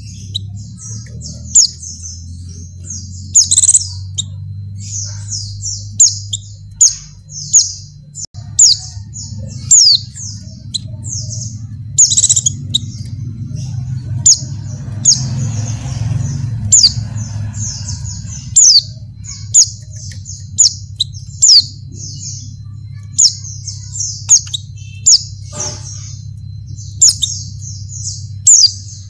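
White-eye (pleci) calling: a rapid stream of short high chirps, broken every second or two by a louder, sharper note, over a low steady hum. Presented as a female in breeding condition calling to males.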